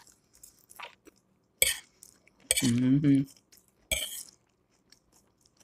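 Metal fork clinking against a glass plate while eating salad, with small mouth and chewing noises, and a short hum of the voice a little past halfway.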